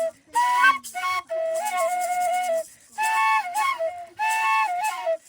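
Flute music: a melody in phrases of held notes with short breaths between them.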